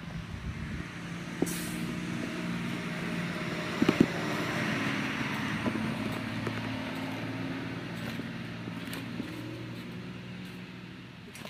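A motor vehicle passing by: a steady engine hum and tyre noise that swell to a peak about four to five seconds in, then slowly fade away. A few sharp knocks, the loudest about four seconds in.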